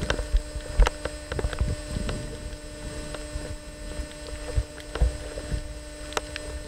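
Underwater sound around a camera as sea lions swim close: a steady hum under a wash of water noise, broken by scattered sharp clicks and low thumps of water and bubbles moving past.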